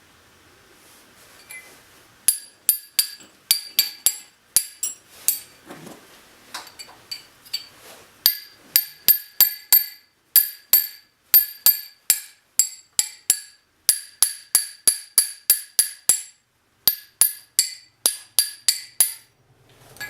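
A hammer tapping on a small metal part: sharp, ringing metal-on-metal strikes, about two to three a second, in runs with a couple of short pauses.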